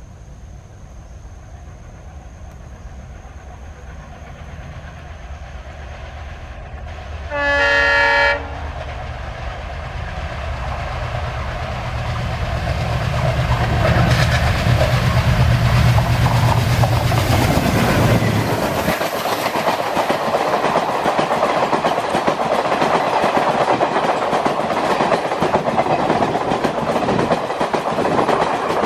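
ALCO WDG-3A diesel locomotive approaching with its engine rumble growing louder, and one loud horn blast of about a second, a little over seven seconds in. The engine sound drops away suddenly near the middle as the locomotive passes, and the rushing and clickety-clack of the express's passenger coaches speeding by follows.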